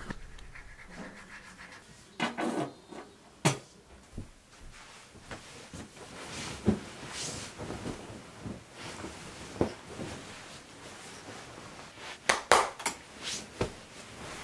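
Household handling sounds: a toothbrush scrubbing at a sink, then bedding and pillows rustling with soft knocks as a child climbs into bed. There are scattered short knocks and rustles, with the loudest cluster near the end.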